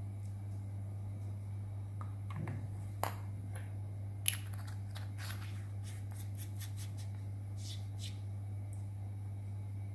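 Small clicks and scrapes from the tail cap and threaded body of a Nitecore MH20 flashlight being handled, with one sharper click about four seconds in and a quick run of light clicks after it. A steady low hum sits underneath.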